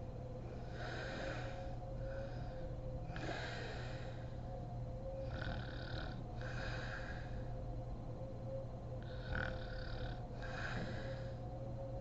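A woman snoring in her sleep, four slow breaths of noisy, rasping breath sounds, most of them in two parts, over a steady low hum.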